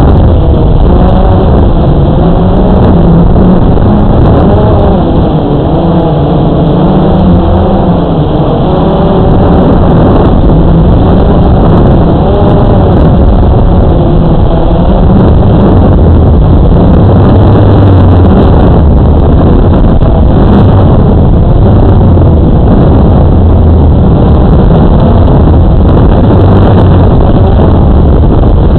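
Drone's electric motors and propellers whirring loudly right at the microphone, a steady rushing drone with a hum whose pitch wavers up and down as the motors keep changing speed.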